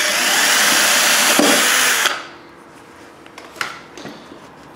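Cordless drill running a twist bit through plasterboard to drill a hole. It stops sharply about two seconds in, followed by a couple of faint clicks.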